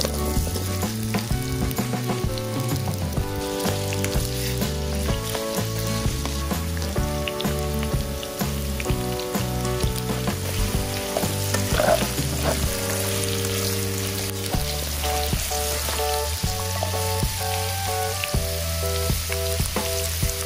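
Beef sizzling in oil in a pot as it is stir-fried for seaweed soup, with frequent clicks of a utensil stirring it. Background music plays over it.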